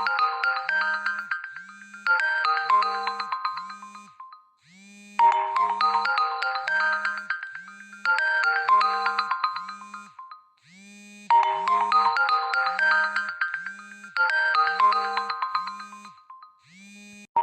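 Huawei Nova Y90 smartphone playing a ringtone melody: a bright, chiming phrase that repeats about every six seconds with a brief gap between repeats, over a low pulse about twice a second. A different tone cuts in at the very end.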